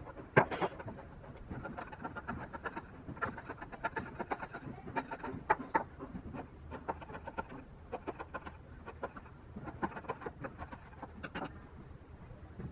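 Wood chisel pushed by hand, paring thin shavings from a small wooden joint piece: a sharper cut about half a second in, then a run of short, irregular scraping strokes.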